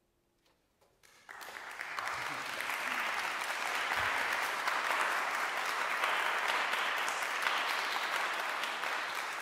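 Near silence for about a second, then an audience starts applauding and keeps up steady clapping.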